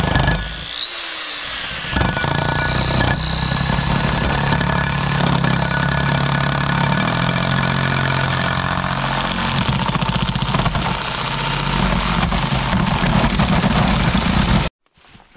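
Corded electric drill running a hole saw, cutting a hole through vinyl siding into the house wall from the outside. It eases off briefly about a second in, then runs on steadily under load until it cuts off abruptly near the end.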